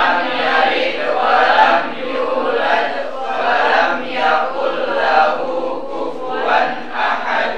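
A group of voices chanting together in unison, the class reciting or singing along with the teacher. It stops near the end.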